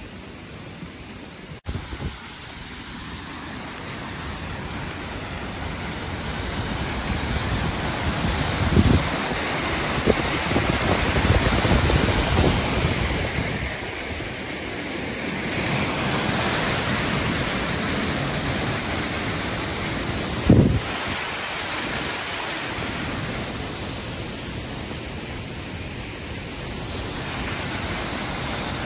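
Steady rushing noise of running water and wind, swelling louder for a few seconds about a third of the way in, with a brief thump about two-thirds in.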